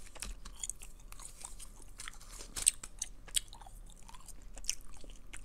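Close-miked unwrapping of a stick of Extra bubble gum: the paper-and-foil wrapper crinkles and tears in small sharp clicks, with a couple of louder snaps near the middle, mixed with gum chewing.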